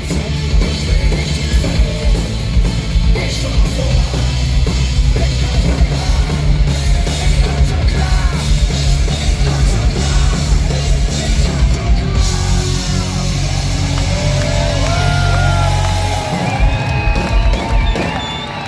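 Punk rock band playing live at full volume, with drums, distorted guitars and shouted vocals. About sixteen seconds in, the heavy bass and drums drop away and held sung notes carry on.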